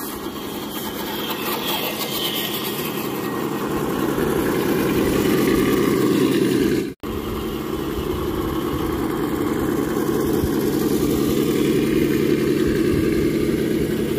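Motor and drivetrain of a radio-controlled scale crawler running steadily. It grows louder over the first few seconds and cuts out abruptly for an instant about halfway through.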